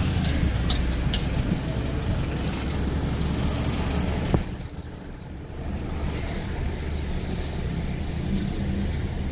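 Car driving on a town street, heard from inside the cabin: a steady low rumble of engine and tyres. Street and wind noise is louder for the first half, then drops off after a sharp click about halfway through.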